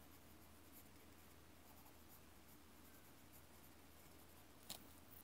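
Faint scratching of a pencil writing on the paper page of a book, with one light tap near the end.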